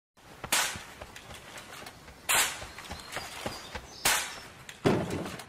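Four sharp cracks, each fading quickly, spaced about two seconds apart at first. The last, near the end, comes close after the third and carries a deep thump. A faint rustle lies underneath.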